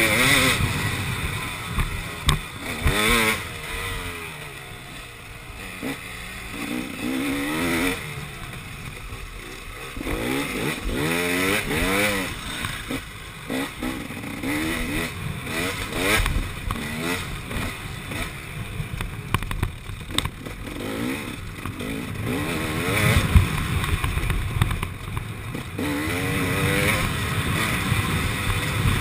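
KTM 300 XC two-stroke dirt bike engine under the rider, revving up and down again and again as the throttle is worked. It eases off for a few seconds about four seconds in.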